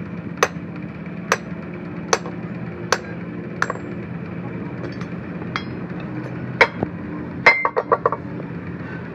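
Hammer striking the steel parts of a truck fifth-wheel coupling: five sharp blows about 0.8 s apart, then a few more strikes and a quick rattle of metal clinks near the end. A steady low hum runs underneath.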